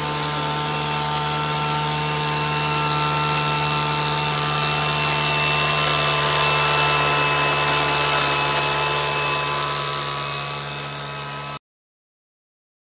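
Two-person tea harvester's small petrol engine running steadily at working speed as its curved cutter bar shears the tops of tea bushes. The sound stops abruptly near the end, followed by a second of silence.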